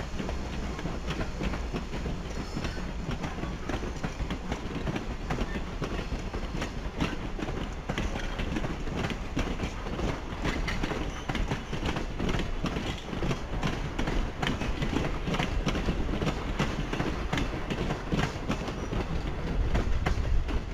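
Strasburg Rail Road passenger coaches rolling past on the track: a steady rumble with a constant rapid clicking and rattling of wheels on rail, a little louder near the end as the last cars come closest.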